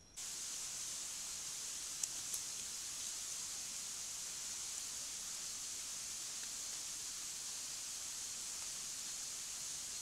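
Steady high-pitched hiss from a camera trap's recording, with two faint clicks about two seconds in.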